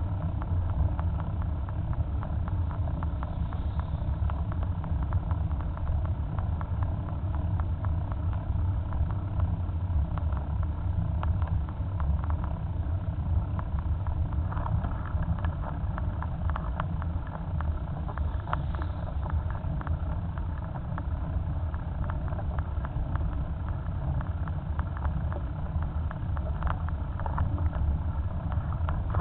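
Steady low rumble of a vehicle riding along an asphalt road: wind on the microphone mixed with tyre noise, with a few faint ticks from the road surface.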